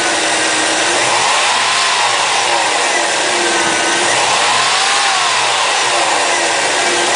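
Car engine running loud and being revved up and down several times, its pitch rising and falling about every two seconds.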